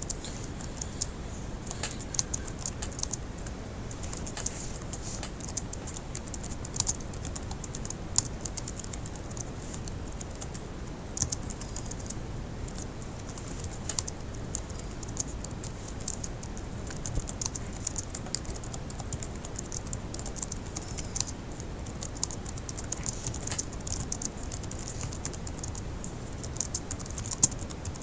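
Fast typing on a laptop keyboard: a steady, irregular stream of key clicks with now and then a louder stroke, such as the space bar.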